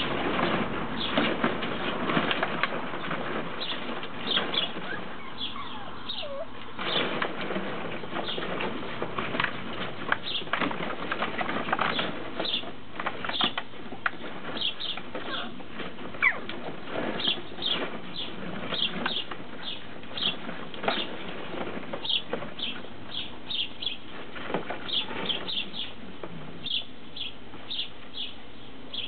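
Plastic ball-pit balls and empty plastic bottles clattering and knocking together as Tibetan terrier puppies scramble and dig through them, busiest in the first half. Small birds chirp repeatedly throughout, more often toward the end.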